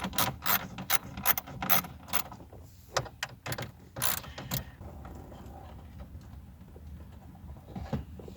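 Ratchet wrench with a 7 mm socket clicking in quick strokes as it loosens a bolt, the run of clicks thinning out after a couple of seconds and giving way to faint handling noise.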